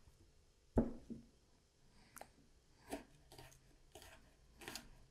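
Broad-bladed kitchen knife chopping garlic cloves on a wooden cutting board: a dull thump about a second in, then a run of light, irregular taps of the blade on the board.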